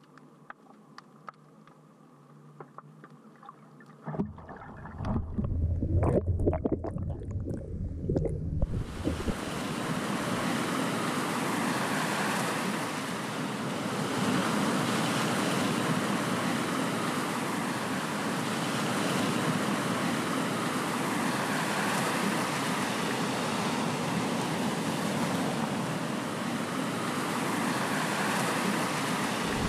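Quiet, muffled underwater ambience with faint clicks, then a few seconds of loud churning and splashing as a net fish trap is pulled up through the water. After that, a steady wash of seawater lapping against a harbour sea wall, swelling every few seconds.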